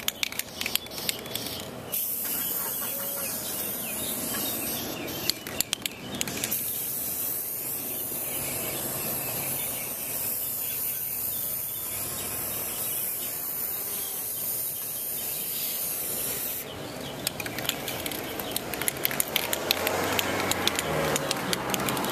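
Rust-Oleum clear-coat aerosol spray can spraying in two long hissing bursts: one of about four seconds and, after a brief break, one of about ten seconds. A rapid clatter of clicks comes before, between and after the bursts.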